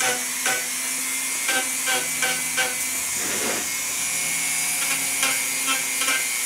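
Handheld rotary tool running steadily with a small round burr, dabbed again and again into the face of a wooden board to cut a pattern of shallow dents, about three light touches a second.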